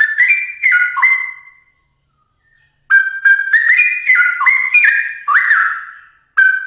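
Straw-headed bulbul (cucak rowo) singing: two phrases of loud, flute-like whistled notes that leap up and down in pitch, with a pause of about a second between them.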